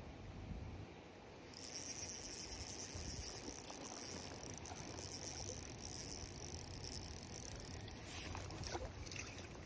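Small spinning fishing reel making a steady high whirr for about six seconds, starting sharply a second and a half in, with a few light clicks near the end.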